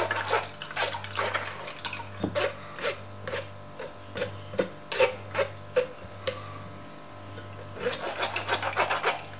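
Metal spoon scraping and pressing carrot pulp against a stainless steel mesh sieve to force the juice through: a repeated rasping at about two or three strokes a second, pausing about two-thirds of the way in before starting again.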